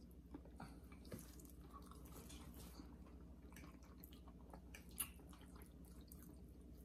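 Faint eating sounds at near-silence level: quiet chewing and wet mouth noises with scattered small clicks, and one sharper click about five seconds in, over a low steady hum.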